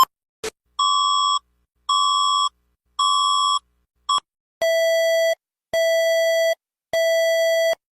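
Electronic emergency-alert tone: a click, then three steady high beeps about a second apart, a short blip, and then three lower beeps, each beep about two-thirds of a second long.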